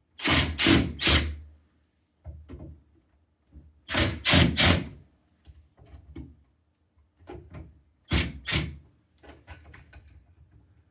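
Door lockset hardware clacking as it is worked by hand: three quick sharp clacks, another three about four seconds later, then two more and a few lighter clicks near the end.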